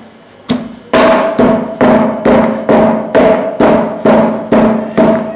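Stone pestle pounding ginger in a stone mortar, striking about twice a second. Each blow is a sharp knock with a short ringing tail, and the pounding begins about half a second in.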